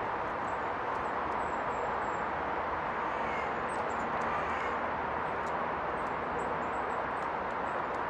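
Steady rushing of river water, with faint, short, high chirps of small birds scattered over it.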